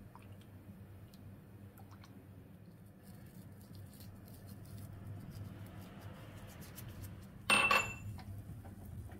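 Milk simmering in a nonstick pan with faint scattered pops of bubbles over a low steady hum. Near the end comes one short, sharp clink with a brief ring, the loudest sound.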